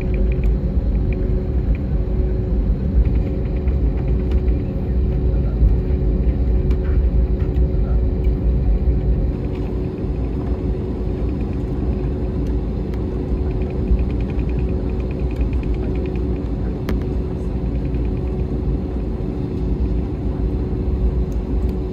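Cabin noise of an Airbus A321neo taxiing: a steady low rumble of the airliner rolling along the taxiway, with a steady hum running through it.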